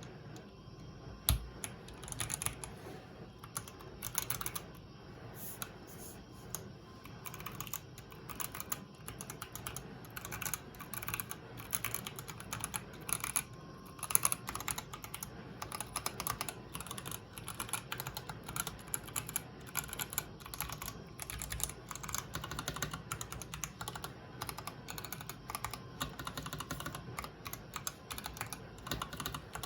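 Typing on an IDOBAO ID80 custom mechanical keyboard with Kiwi tactile switches and PBT keycaps: a quick, uneven run of key clacks, with a few louder strikes, one about a second in and one about halfway through.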